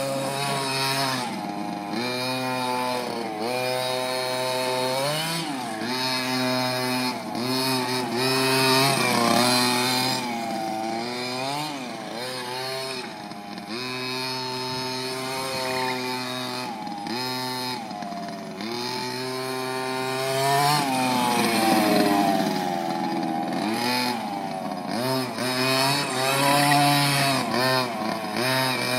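Small 23 cc two-stroke petrol engine of a 1:5 scale RC car running hard, its revs rising and falling over and over as the throttle is worked, with the worn, slick-bald tyres squealing.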